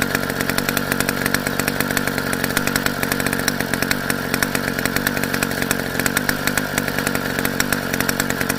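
Motorized bicycle's small engine running steadily, with a fast, even beat that holds at one speed.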